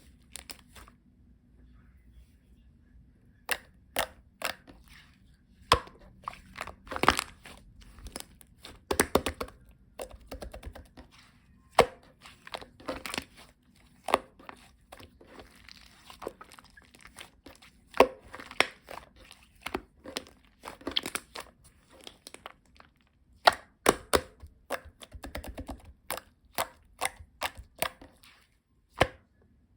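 Irregular sharp taps and clicks, with crinkling between them, as of small objects or material being handled close by.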